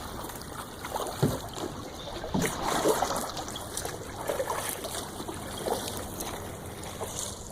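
Kayak paddle strokes dipping and splashing in river water, several irregular splashes over a steady trickle of moving water.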